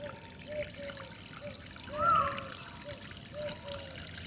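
Water trickling and gurgling, with a string of short, low, bubbling notes. About two seconds in, a single louder, higher bird note rises and falls.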